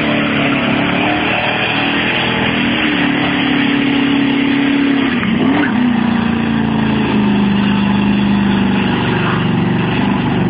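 Car doing a burnout: the engine is held at high revs with only small shifts in pitch while the spinning tyres screech.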